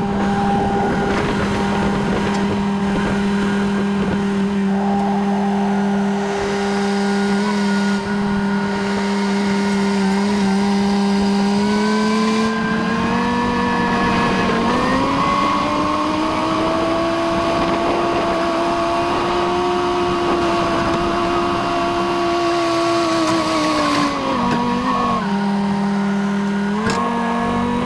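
Skid steer engine running at a steady speed, then revving up from about 12 to 15 seconds in and holding the higher speed. It drops back near 25 seconds in, with a brief rev again near the end.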